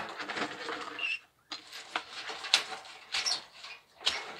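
Dry seaweed crackling and rustling as it is handled, with garden shears snipping through it: several sharp snips, the loudest about two and a half seconds in. The seaweed is dry, which makes it hard to cut.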